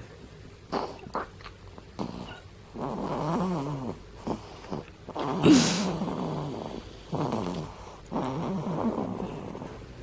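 Breastfeeding baby snoring in her sleep while still latched at the breast: about five snoring breaths with a purr-like rattle, the loudest a little past halfway. A few small clicks come near the start.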